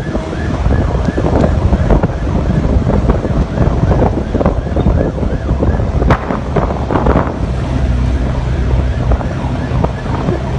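Heavy wind buffeting the phone's microphone as it films from a moving vehicle: a dense, loud rumble, with a sharp knock about six seconds in.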